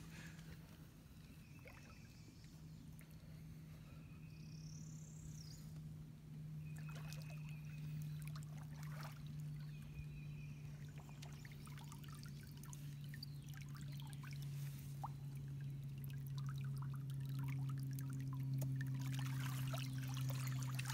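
Water sloshing and trickling around a person wading chest-deep in a river, over a steady low hum that slowly grows louder.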